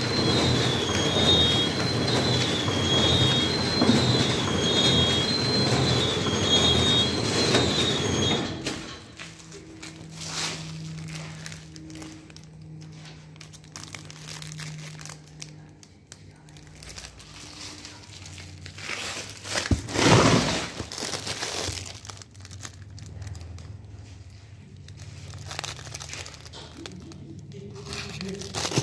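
A packing machine wrapping IV bottles in plastic film runs loudly, with a high, warbling two-note tone over it. About eight seconds in the machine noise falls away, and the film-wrapped IV bottles crinkle as they are handled, with one loud crinkle midway through that stretch.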